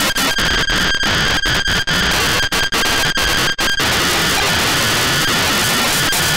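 Loud harsh static of a 'broken TV' glitch sound effect, with steady high whining tones running through it. Rapid cut-outs make it stutter until nearly four seconds in, after which the static runs unbroken.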